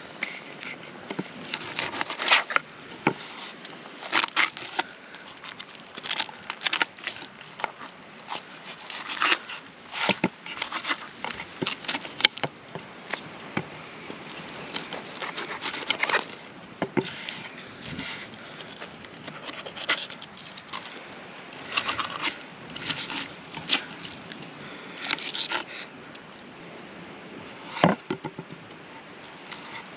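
A knife filleting fish on a wooden cutting board: irregular scrapes, crackles and taps as the blade cuts through the fish and meets the board.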